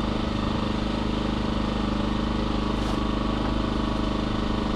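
Small Champion inverter generator engine running steadily at an even idle, warmed up for an oil change.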